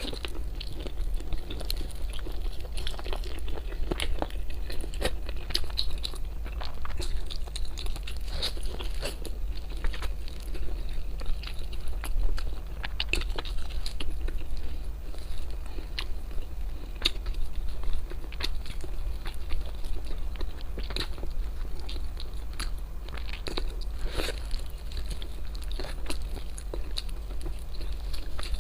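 Close-miked eating: irregular crunchy bites and chewing, over a steady low hum.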